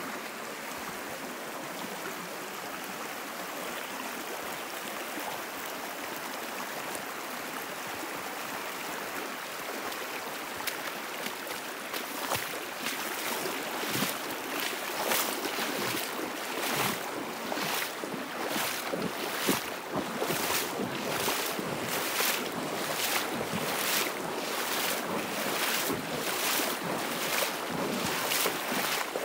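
Rain-fed bush creek running steadily. From about eleven seconds in, footsteps at a steady walking pace, about three every two seconds, sound over the water.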